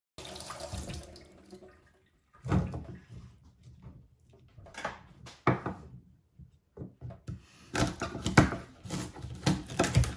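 Kitchen knife cutting through asparagus stalks onto a wooden cutting board: separate knocks at first, then a quicker run of chops near the end. A short rushing noise comes at the very start.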